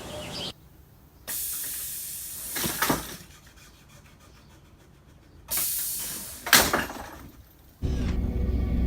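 Two bursts of hissing, each well over a second long and each with a sharp knock near its end, separated by near quiet; music starts about a second before the end.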